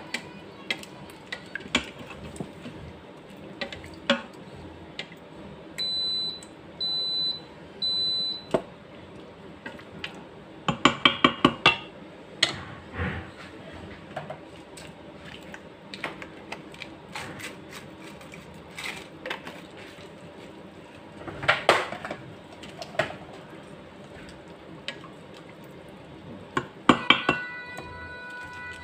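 Wooden spoon stirring and knocking against the stainless steel inner pot of an electric pressure cooker, with scattered clinks and knocks and a quick run of clinks about eleven seconds in. Three short, high electronic beeps sound about six to eight seconds in.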